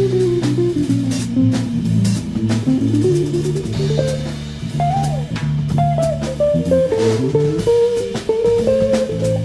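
Background music: a band with plucked guitar melody, bass guitar and drum kit keeping a steady beat.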